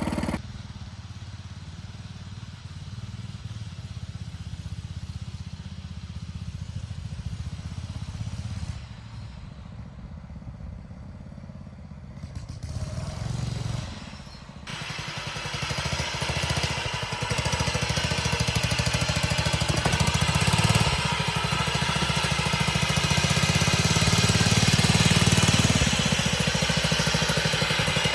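Riding lawn mower engine running steadily, quieter at first and much louder from about halfway through.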